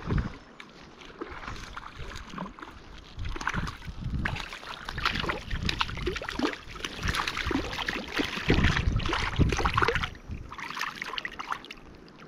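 A hooked brown trout splashing and thrashing at the surface of shallow river water as it is brought to hand, with water sloshing in irregular bursts, heaviest from about four to ten seconds in. Low rumbling thumps come at the start and again near the end of the heaviest splashing.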